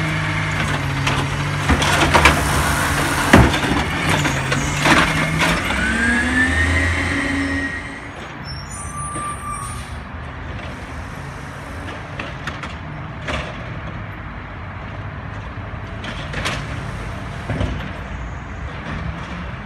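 Natural-gas garbage truck working a side-loader arm: the engine runs steadily while the arm empties and sets down a trash cart with several sharp knocks and clatter. About six seconds in, the engine pitch rises as the truck pulls away, and after that the truck is heard more faintly as it moves off down the street.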